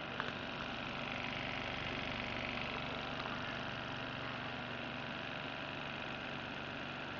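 Steady whirring hum of the motor spinning a propeller clock's LED arm at speed, with air hiss from the rotating arm. A brief click about a quarter second in.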